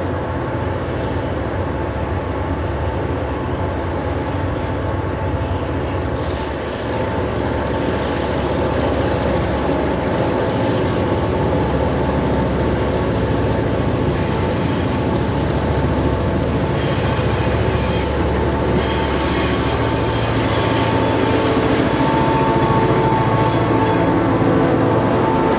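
St. Maries River Railroad diesel locomotives hauling a lumber train, engines rumbling as the train rolls past, growing louder as it nears. A high steady wheel squeal sounds, strongest near the end.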